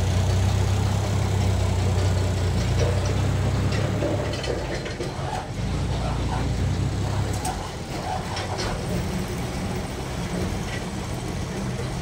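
Forklift engine running under load as it pushes a heavy log, with a steady low hum that eases off about seven and a half seconds in. A few light knocks are heard in the middle.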